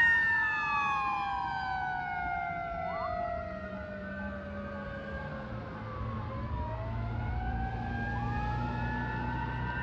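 Fire engine siren wailing as the truck pulls away: its pitch slides down and fades over the first six seconds, then climbs again, with a second siren tone crossing it. A low rumble builds underneath in the second half.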